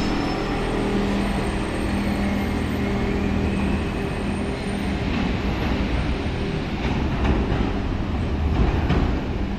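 Charleroi Metro light-rail tram pulling out of an underground station and running away down the track: a steady motor hum over the rumble of wheels on the rails, with a few clicks late on.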